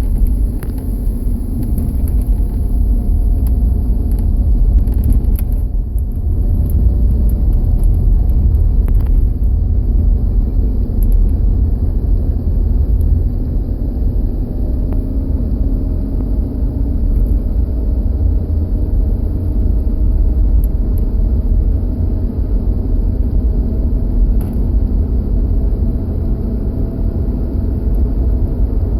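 1999 Jeep Grand Cherokee Quadra-Drive under way: a steady low rumble with a faint whine that drifts slowly in pitch. The owner is unsure whether it comes from a wheel bearing or the differential.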